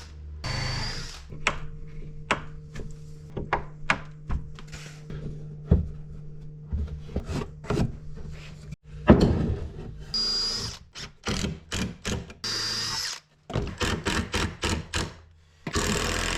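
Woodworking tool sounds: a string of knocks and clicks, with a power drill running in short spells.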